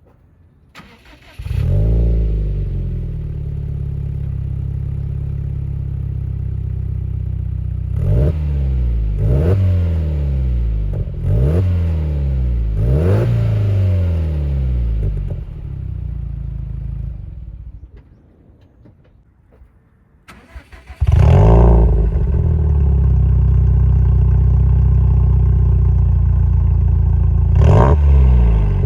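Subaru WRX STI's turbocharged EJ20 flat-four starting through an aftermarket variable-valve exhaust muffler, idling and blipped four times. It dies away past the middle, then comes back louder and runs on with another blip near the end.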